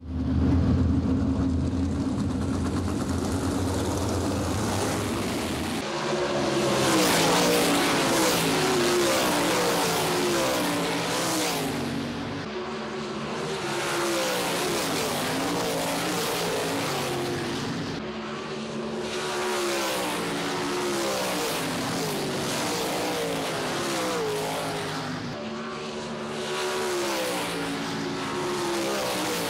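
Winged 410 sprint cars' methanol-burning V8 engines racing past on a dirt oval, several cars' engines rising and falling in pitch in overlapping passes as they go through the turn. The first six seconds are a steady low hum.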